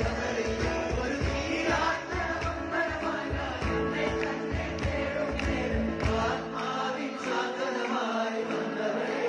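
Live band music with several voices singing over held chords. A steady low beat runs under it and drops out about two-thirds of the way through, leaving the chords and voices.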